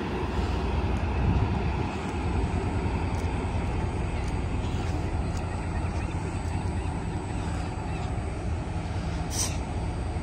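Siemens SC44 Charger diesel locomotive running close by, its Cummins QSK95 engine giving a steady low drone. There is a brief high-pitched sound near the end.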